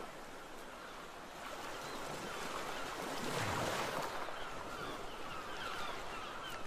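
Ocean surf ambience: a steady wash of waves, with one wave swelling and falling about three and a half seconds in, and short bird chirps from about halfway through.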